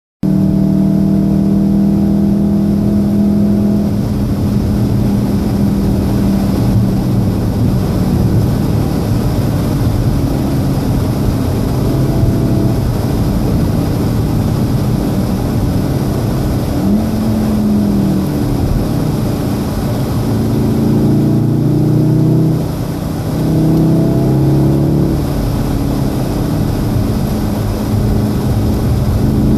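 A 2014 VW Golf VII R's turbocharged 2.0-litre four-cylinder engine, heard from inside the cabin at speed on a wet track, over heavy tyre and road noise. The engine note is steady at first. In the second half, as the car slows from about 150 km/h for a corner, the engine pitch changes in several steps.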